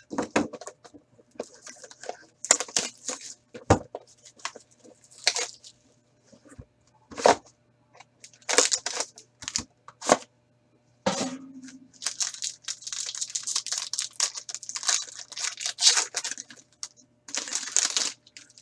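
Plastic shrink-wrap and cellophane being torn and crinkled off a hockey card box and the card packs inside, in irregular bursts, with a long stretch of steady crinkling in the second half. A few sharp knocks come as the box is handled.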